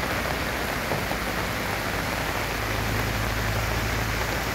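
Heavy rain pouring steadily on a flooded street, a dense even hiss. From about two seconds in, a low engine hum joins it as a car drives through the floodwater.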